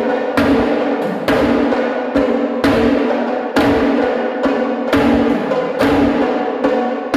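Loud, continuous drumming, with heavy hits about once a second over a steady ringing drone.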